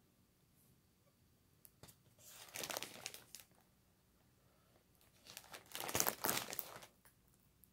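Plastic mailer bag and packing plastic crinkling as the package is handled, in two bouts of a second or so each, the second one louder.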